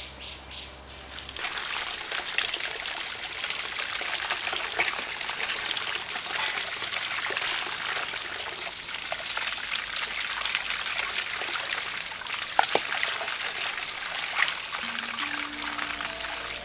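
Water pouring steadily from a bamboo spout and splashing into a clay bowl, with hands rinsing under the stream. It starts about a second and a half in, and there is one sharp knock about two-thirds of the way through.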